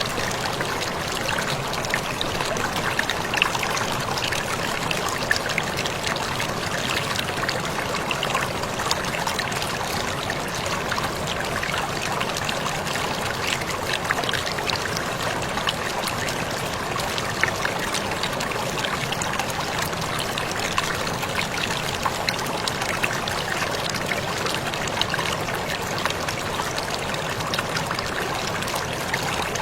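Waterfall running steadily: an even rush of falling water with many small splashes and trickles through it.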